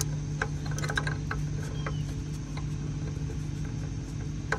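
A Craftsman 3/8-inch hand ratchet clicking in short, irregular strokes as a socket snugs down a new O2 sensor. The clicks come in a cluster in the first second and a half, then a few scattered ones, and one more near the end, all over a steady low hum.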